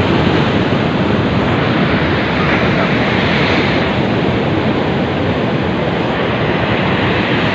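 Sea surf washing steadily against a breakwater, an even noise with no breaks.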